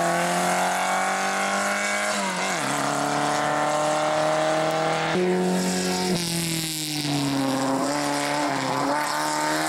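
Rally car engines at full throttle, the pitch climbing through each gear and dropping sharply at the shifts. A rear-engined Škoda pulls away, and a second rally car comes up and turns through the corner.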